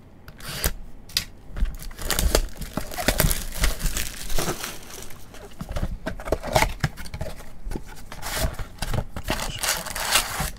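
Cardboard retail box of Bowman baseball cards being handled and torn open by gloved hands: irregular crinkling, scraping and tearing rustles, with short clicks of cardboard flaps.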